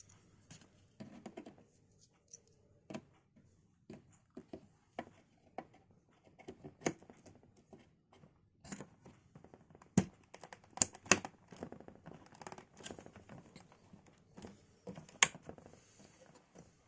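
Close handling of computer parts and their packaging: rustling and crinkling with many irregular sharp clicks, the loudest a few clicks about two-thirds of the way in and one near the end.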